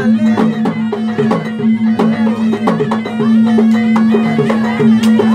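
Traditional Bugis-Makassar gendang music: hand-beaten gendang drums playing quick strokes under a reedy shawm that plays a bending, ornamented melody over a steady held drone tone.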